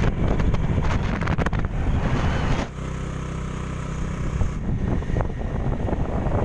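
Wind buffeting the microphone on a moving motorbike. About three seconds in, the wind eases for a moment and the engine's steady hum shows through.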